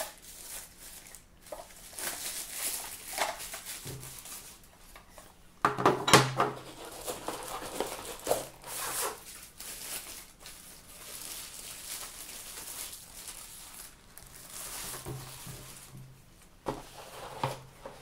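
Packaging wrap rustling and crinkling as it is pulled off a smart lock keypad and crumpled by hand, in irregular handling noises, with a louder burst of rustling about six seconds in.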